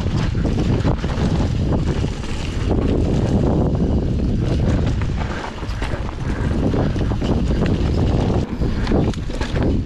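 Mountain bike ridden fast along a dirt trail strewn with dry leaves: heavy wind buffeting on the microphone, with tyre rumble over dirt and leaves and frequent short knocks and rattles from the bike over bumps.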